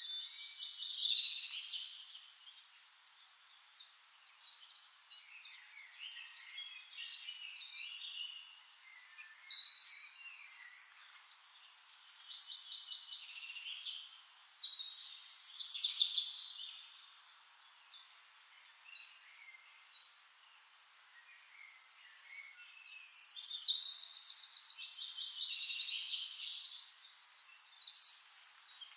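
Songbirds singing in bursts of fast, high notes, four louder phrases with the longest, a rapid trill, near the end, and fainter chirping between them.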